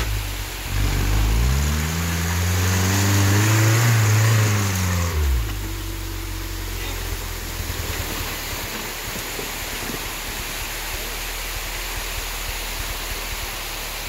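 Rock crawler buggy's engine revving up and down in several swells as it climbs a rock ledge. About five seconds in, the revs drop away to a low steady run under the even rush of water flowing over the rock, with a few small knocks.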